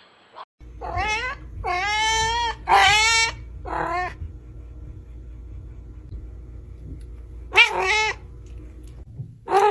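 A cat meowing loudly in drawn-out, wavering yowls: a run of four calls in the first four seconds, then two more near the end. A low steady hum sits behind the calls.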